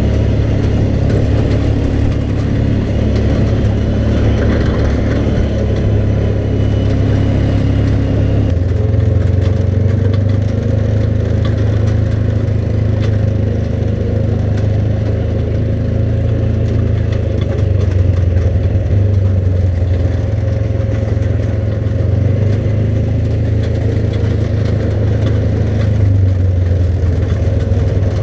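ATV engine running steadily under way, its tone shifting about eight seconds in.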